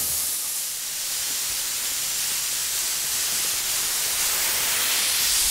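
Compressed air hissing steadily from an air compressor's tank fittings, growing a little louder toward the end.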